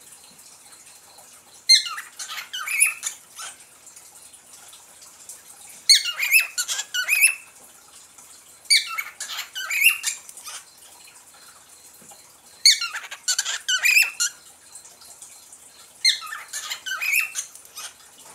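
Pet parrot in its cage chattering in five short bouts of quick, squeaky chirps, a few seconds apart.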